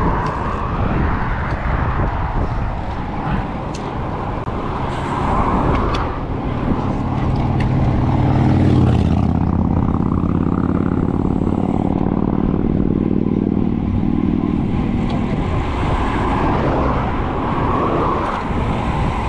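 Wind and road noise from riding a road bike at speed along a highway, with a motor vehicle passing and loudest about nine seconds in.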